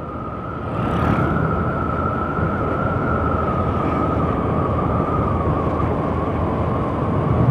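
Honda Vario 150 scooter cruising at steady speed, heard through a headset mic on the rider: wind and road rush with a steady high whine that sinks slowly in pitch. The sound swells about a second in.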